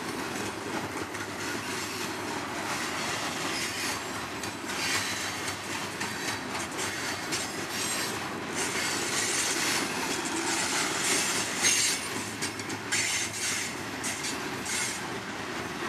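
Freight cars of a passing train rolling steadily along the rails, with high-pitched wheel squeal coming and going over the steady rumble.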